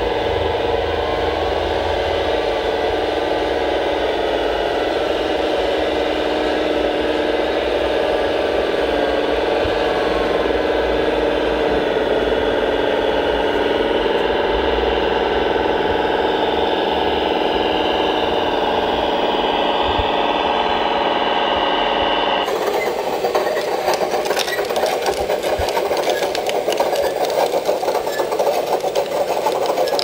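Radio-controlled scale construction machinery running: a steady whine of several tones from a model tracked loader's drive motors and hydraulics. About three quarters of the way through it changes suddenly to a fast, rattling, knocking mechanical running.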